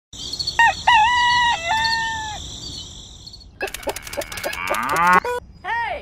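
A rooster crowing, in several held segments, then a busier run of clicking, gliding farmyard animal calls in the second half.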